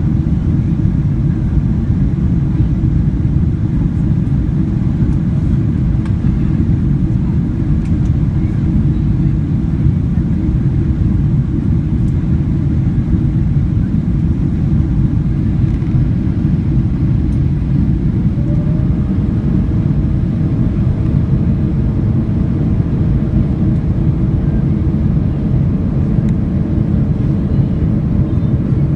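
Steady, loud low rumble of a Boeing 777-200ER's engines and airflow heard inside the passenger cabin in flight. A faint, steady higher hum joins in about two-thirds of the way through.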